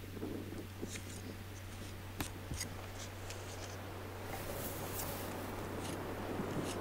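Stainable wood filler being pressed and scraped into a lag-bolt hole in carved cherry wood with a wooden stick: soft scraping with scattered small clicks, over a steady low hum.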